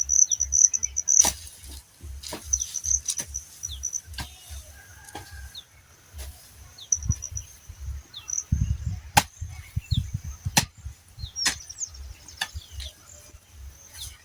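Field ambience: an insect buzzing in a high steady tone that pulses louder at times, with short falling bird chirps. Sharp knocks come about once a second, with a run of low thuds about halfway through.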